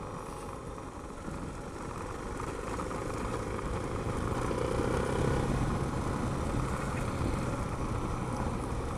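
Suzuki DR650's single-cylinder four-stroke engine running steadily as the motorcycle rides along a gravel road, under wind noise on the helmet-mounted microphone. It grows a little louder over the first few seconds, then holds steady.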